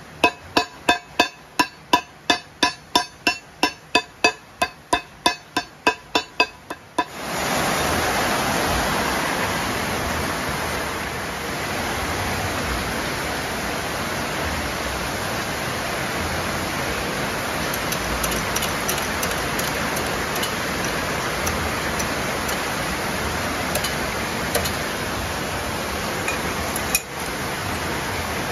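About twenty quick hammer blows, roughly three a second, on a steel drift seated in a car crankshaft pulley's hub, each one ringing like struck steel. About seven seconds in they stop and a steady rushing noise takes over.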